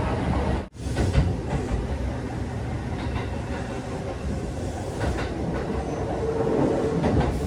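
Running noise of a Kintetsu two-car local train heard from inside the car: a steady rumble of wheels on rail with a few clicks over rail joints. The sound drops out for a moment under a second in.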